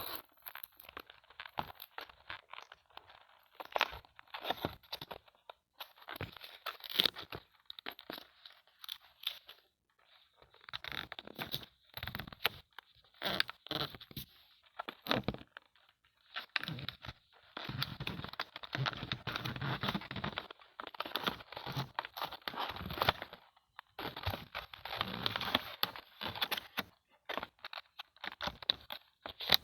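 Toy doctor playset pieces and their packaging being handled, in irregular crinkling, crunching rustles and small clicks with brief pauses between them. The rustling grows denser and more continuous from a little past halfway.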